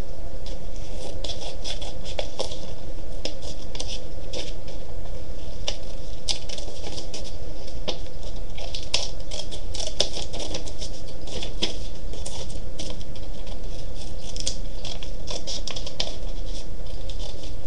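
Scissors cutting a circle out of black paper: a quick, irregular run of short snips and paper rustles, over a steady low background hum.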